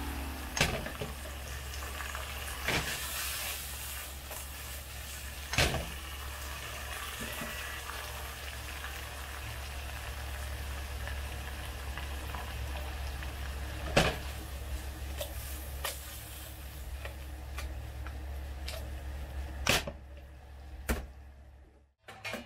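Ground-pork meat miso sauce simmering and sizzling in a wok, with a few sharp clicks against the pan. It fades out near the end.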